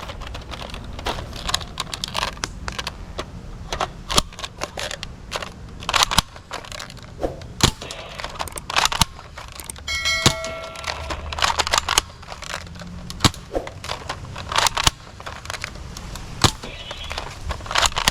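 Irregular sharp clicks and clacks of plastic toy guns being handled, over a low steady rumble, with a short electronic toy tone about ten seconds in.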